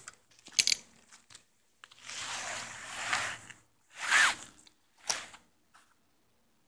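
Wet fishing keepnet being hauled out of the water onto the bank: rustling, scraping handling noise with water running off the mesh. It comes as several short bursts, the longest about a second and a half long about two seconds in.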